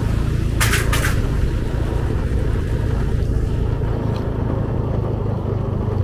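A vehicle engine running steadily with a low hum while driving in slowly. Two short hissing bursts come about a second in.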